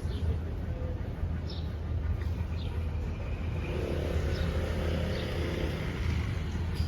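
Street ambience: a steady low rumble of road traffic, with a few faint short chirps above it.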